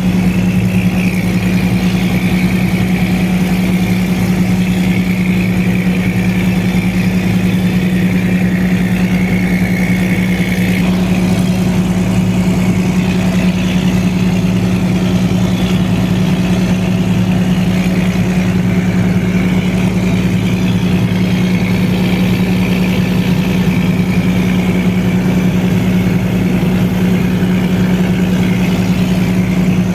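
An engine running steadily at a constant speed, with a strong low drone and a fainter wavering higher whine that holds unchanged throughout.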